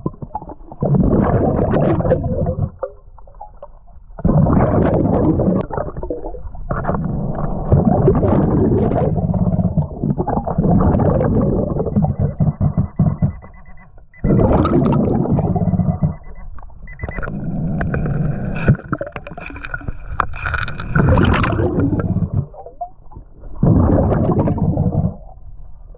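Underwater sound of a diver breathing through a scuba regulator: long bubbling, rumbling exhalations every few seconds with quieter pauses between. A thin steady high tone sounds for a few seconds midway.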